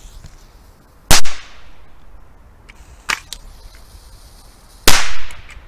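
Exploding crossbow darts going off: two loud sharp bangs, about a second in and near the end, each with a short echoing tail, and a fainter crack between them.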